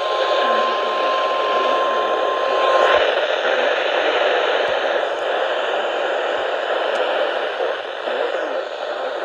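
Steady radio static hiss from a receiver between broadcast alerts, with a single steady high tone under it that cuts off about three seconds in.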